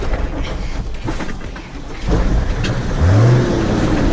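Nissan GQ Patrol's TD42 4.2-litre six-cylinder diesel engine working under load on a rutted climb, heard from inside the cab. It gets louder about two seconds in and revs up briefly about a second later.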